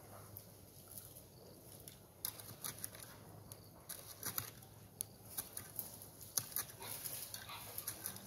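Long-handled hoe chopping and scraping into bare dirt: a run of irregular sharp strikes and scrapes that starts about two seconds in.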